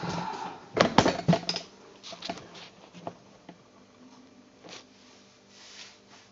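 A few sharp knocks and clicks of things being handled, clustered about a second in, followed by softer scattered handling sounds.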